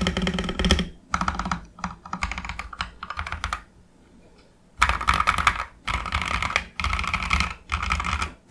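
Fast typing on a mechanical keyboard with Akko Radiant Red linear switches and ASA-profile keycaps in a GH60 ABS plastic case, a thocky sound. The keystrokes come in quick runs, with a pause of about a second near the middle.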